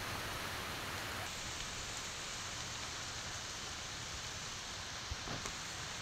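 Steady hiss of heavy rain and wind on oil palm fronds. A little over a second in, the sound loses its highest hiss suddenly.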